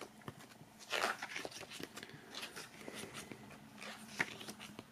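Pages of a CD booklet being turned by hand: faint paper rustling with small clicks, a louder rustle about a second in and a sharp tick near the end.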